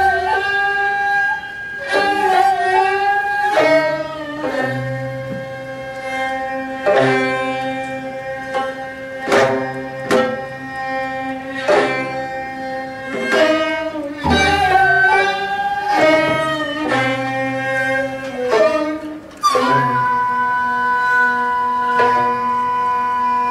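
Korean traditional instrumental ensemble playing a slow piece: plucked gayageum zithers and janggu hourglass-drum strokes under long, wavering, bending wind and bowed-string notes from daegeum flute, piri and ajaeng.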